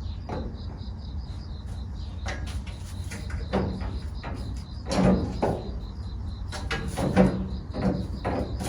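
Irregular knocks, clicks and clatter of hand work fitting a pull handle onto a camper box, with a few louder bangs in the second half.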